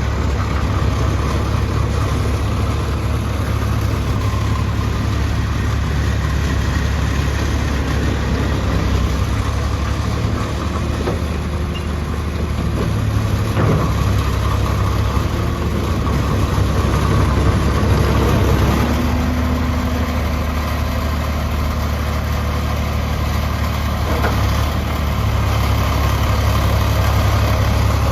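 2004 New Holland LT185B track skid steer loader's diesel engine running steadily at idle.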